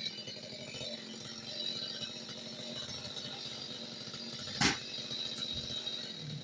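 Chainsaw idling in the background after a cut, with one sharp knock about three-quarters of the way through.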